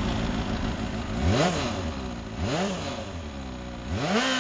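Kawasaki motorcycle engine, cold, idling and then revved three times in quick throttle blips for a burnout. Each rev climbs and drops back to idle, and the last one is held longest.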